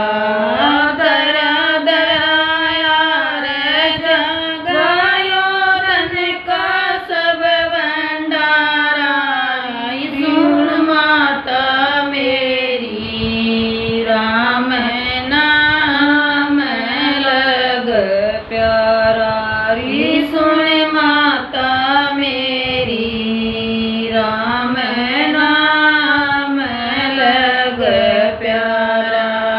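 Two women singing a Hindi devotional bhajan together, a slow chant-like melody with long held, gliding notes.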